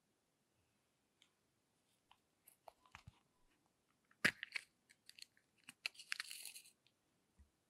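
Small plastic toy makeup compact being handled: scattered light clicks and taps, a sharp snap a little past halfway as the lid is popped open, then a brief rustle as the loose glitter inside shifts.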